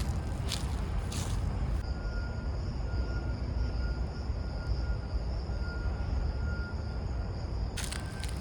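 Footsteps crunching on a rough surface over a steady low rumble. In the middle the crunching stops, leaving the rumble under a steady high hum and a faint thin whistle-like tone, and the steps resume near the end.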